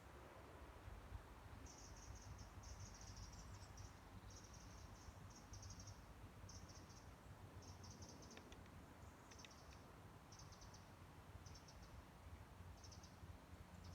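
Faint high-pitched chirping from an insect, in short bursts repeated every half second to a second, over a low background hum. A few soft clicks come near the middle.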